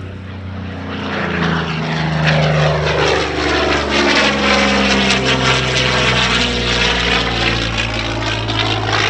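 Curtiss-Wright P-40N Warhawk's Allison V12 engine and propeller at speed as the fighter passes by. It grows loud through the middle and falls in pitch as it goes past.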